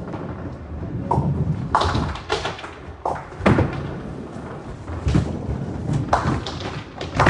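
Nine-pin bowling balls rolling down the lanes with a low rumble, broken by about eight sharp knocks and clatters as balls are set down, strike pins and hit the back of the lanes.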